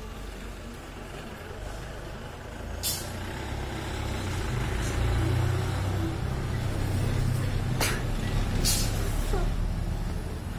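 Low rumble of a vehicle engine, growing louder about three seconds in, with a few short sharp hisses.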